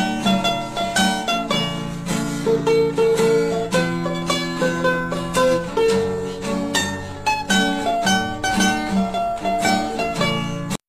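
Background music: a quick picked melody on a plucked string instrument, with steady repeated notes. It stops abruptly right at the end.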